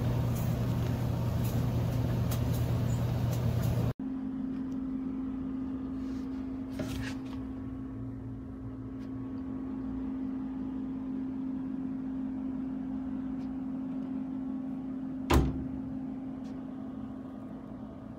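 Compact electric tumble dryer running with a steady motor hum. About four seconds in the sound cuts to a quieter, steadier hum with a held tone, and one sharp knock comes near the end.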